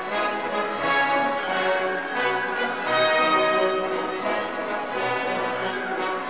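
Orchestral classical music, with brass instruments holding long notes.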